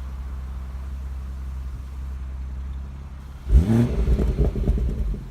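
BMW M140i's 3.0-litre turbocharged straight-six idling steadily through a stock exhaust with its flap held open. About three and a half seconds in, the throttle is blipped: the revs rise sharply and fall back, with crackling as they drop.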